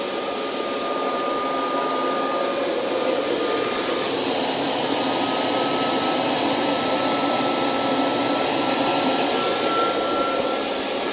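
DIY fluid-bed coffee roaster running: a steady rush of air through the glass roasting chamber, with a thin steady whine that steps slightly higher about four seconds in.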